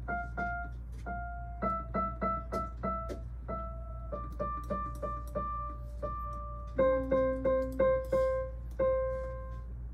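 Digital piano playing a slow, simple single-note melody, with several notes repeated in quick succession. About seven seconds in, the notes grow louder and a lower note sounds with them for about a second, over a steady low hum.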